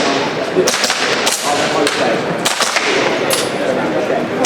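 Airsoft pistol firing a string of single shots: about five sharp cracks at uneven spacing.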